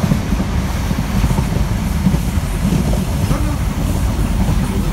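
High Speed Train (InterCity 125) running at speed, heard from inside a passenger coach: a steady low rumble of wheels on the track.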